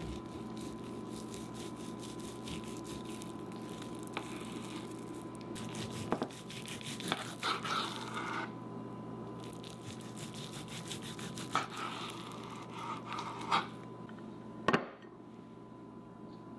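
A long knife sawing through the crusty bark of smoked meat, with rasping back-and-forth strokes in two spells and sharp knocks as the blade meets the cutting board, the loudest knock near the end. A steady low hum runs underneath.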